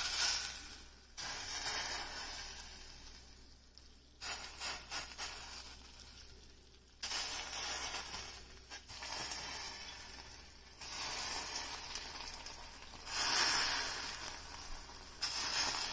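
Sugar melting into caramel in a stainless steel saucepan, sizzling and hissing as a wet pastry brush wipes down the hot sides of the pan, and bubbling near the end. It comes in several stretches that start and stop abruptly.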